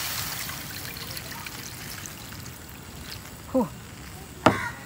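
Water poured into a hot wok of fried pork, the sizzle quickly dying away to a faint steady hiss. Two short sounds falling in pitch come near the end.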